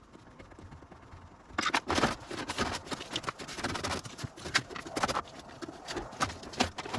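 Rapid, irregular metal clicks, knocks and scrapes of a spanner working on the nuts and bolts of a dashboard bracket, starting about a second and a half in.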